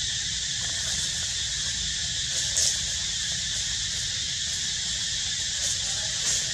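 Steady high-pitched outdoor drone, typical of insects, over a low rumble, with a few brief high squeaks about two and a half seconds in and twice near the end.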